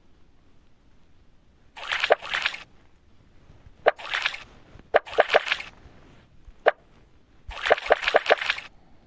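Wet, squelching sound effects for incisions being made in the scalp: four short bursts with sharp clicks in them, and a single click on its own between the third and fourth.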